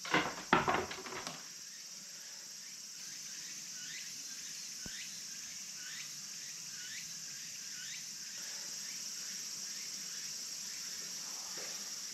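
Insects shrilling steadily in a high, even chorus. Through the middle there is a repeated short falling chirp about twice a second. In the first second a brief clatter of sharp knocks is the loudest sound.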